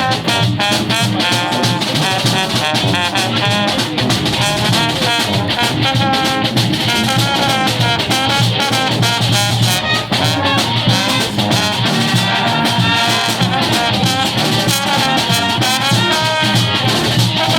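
Brass band playing live: several horns together over drums.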